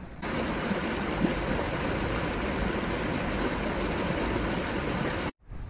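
River water rushing over rocks in shallow rapids: a steady, loud rushing noise that starts abruptly just after the beginning and cuts off suddenly near the end.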